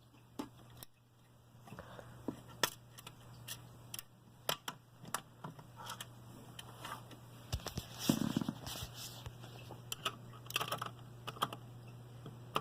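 Screws being driven with a screwdriver into a metal computer case: irregular light clicks and scrapes of the driver and screws, with a short run of scraping about eight seconds in. A steady low hum runs underneath.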